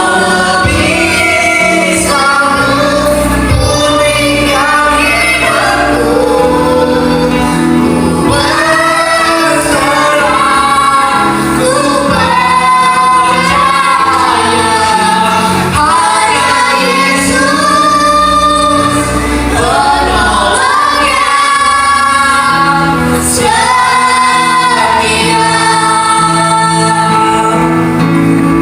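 Several vocalists singing together, female voices among them, over continuous band accompaniment.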